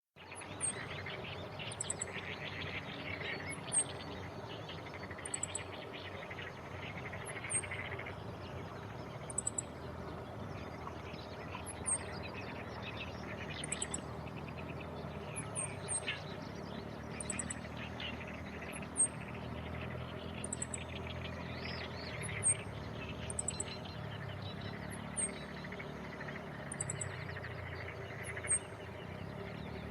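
Male meadow bunting giving short, very high call notes about every one to two seconds, some as quick clusters of ticks and some as a single brief falling note. It calls while carrying food in its bill, which the recordist takes for a parent with a nest of chicks nearby.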